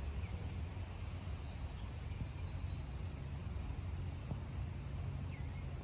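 Outdoor ambience: a steady low rumble with faint, high bird chirps and short whistles, mostly in the first half and once more near the end.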